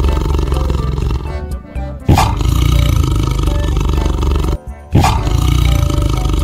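Tiger growling and roaring over background music. It breaks off twice, near two seconds in and again near five seconds, and each time starts again abruptly.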